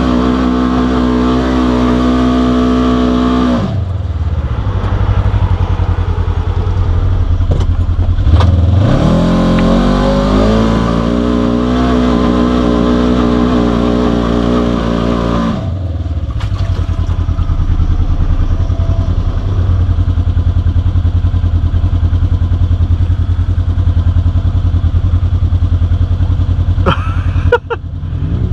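Polaris RZR side-by-side's engine held at high revs, dropping away about four seconds in, revving up again a few seconds later and held high for several seconds, then settling to a lower steady run. A few short knocks near the end.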